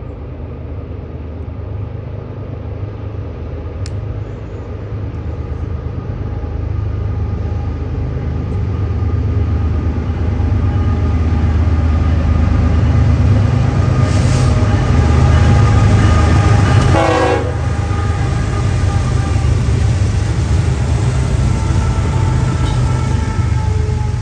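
A diesel-hauled train approaching and passing: a low locomotive rumble that builds to its loudest a little past halfway, then eases slightly. Faint steady tones ride over it.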